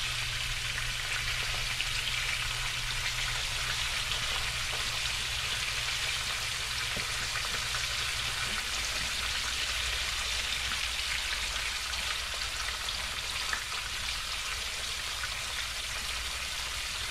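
Breaded jack crevalle fillets sizzling steadily as they shallow-fry in hot oil in a skillet.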